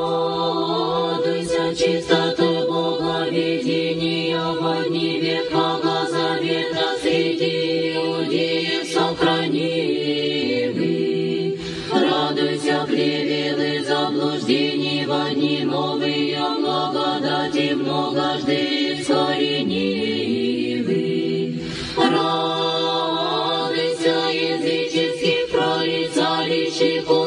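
Choral chant in the Orthodox church style: several voices singing sustained lines over a steady low held note. The phrases break and begin again about twelve seconds in and again about twenty-two seconds in.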